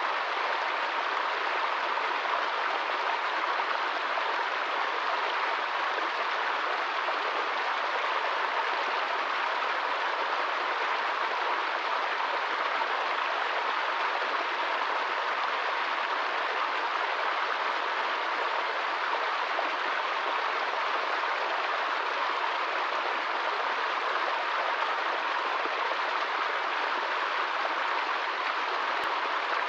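Small woodland stream running in a short cascade over rocks: a steady, unchanging rush of water.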